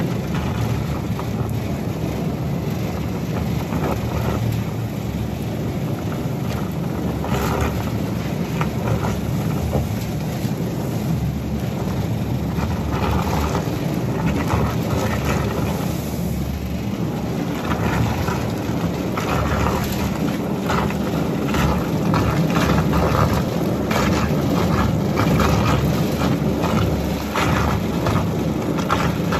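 A steady low rumble of a running vehicle or machine engine, with scattered faint clicks and knocks.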